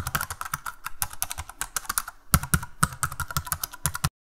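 Typing sound effect: a rapid run of key clicks with a brief pause about two seconds in, stopping abruptly near the end.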